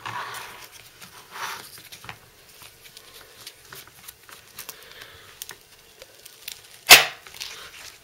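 Faint handling and scuffing, then about seven seconds in a single loud sharp click as the ESEE Junglas blade snaps home in its Kydex sheath, which clicks in heavily with the retention set only to medium.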